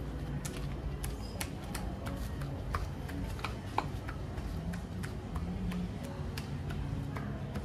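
Irregular sharp clicks and taps, about two or three a second, over a steady low hum.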